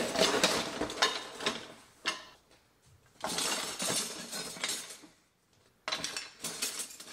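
Metal kitchen utensils clinking and rattling against each other as they are set into a cardboard box, in three spells of clatter with short pauses about two and five seconds in.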